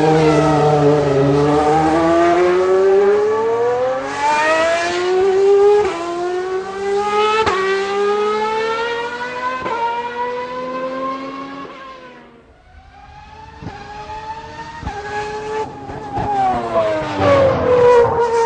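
Old V12 Formula One engine at high revs, climbing in pitch through the gears with a sudden drop at each upshift. The sound fades away about two-thirds through, then comes back loud with the pitch falling as it slows.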